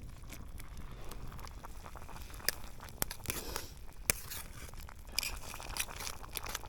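Plastic packaging of a curry roux block crinkling while it is handled, with scattered sharp clicks and snaps.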